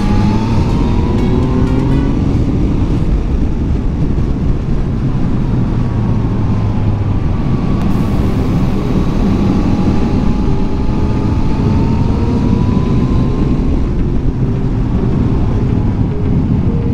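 Yamaha MT-09's three-cylinder engine running under way with heavy wind noise on the microphone. Its pitch rises as the bike accelerates near the start and again about halfway through.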